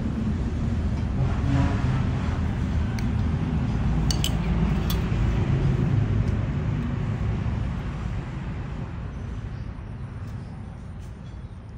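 A steady low rumble that fades away over the last few seconds. About four to five seconds in come a few light clinks of a metal spoon against the ceramic curry bowl.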